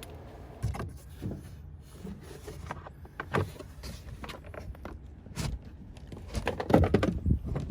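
Scattered clicks and knocks of hands working a car door's plastic interior trim panel, with a quick run of louder knocks near the end.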